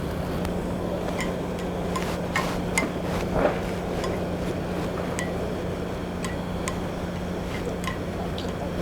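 Scattered light clicks and clinks of kitchenware over a steady hiss and hum.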